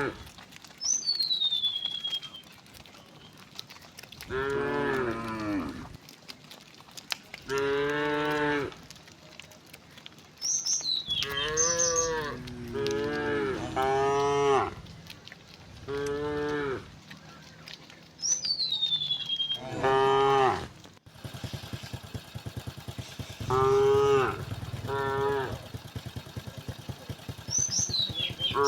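A herd of cattle mooing, about ten separate moos of a second or two each from several cows, some overlapping.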